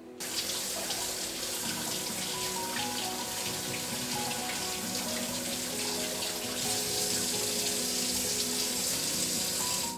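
Kitchen tap running into a stainless steel sink as fresh figs are rinsed by hand under the stream. It starts abruptly and cuts off suddenly at the end.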